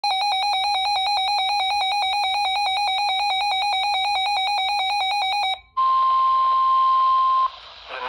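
Weather radio's built-in alert alarm beeping in rapid pulses, about eight a second, for roughly five and a half seconds, then cutting off. The radio opens to the broadcast, where the NOAA Weather Radio warning alert tone sounds as one steady tone over hiss for under two seconds, announcing a severe thunderstorm warning.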